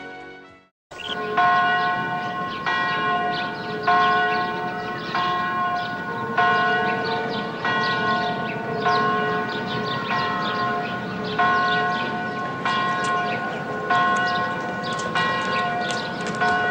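A bell tolling steadily, struck about once every 1.2 seconds, each stroke ringing on into the next. It starts just under a second in, after a moment of silence.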